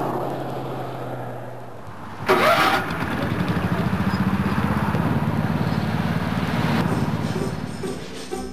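A small air-cooled gasoline engine starting with a sharp burst about two seconds in, then running with a rapid even beat that fades near the end.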